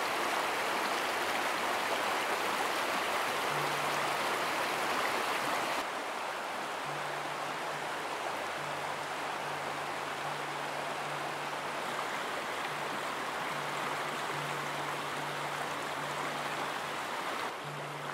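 Shallow forest creek running over rocks: a steady, even rush of water that drops a little in level about six seconds in.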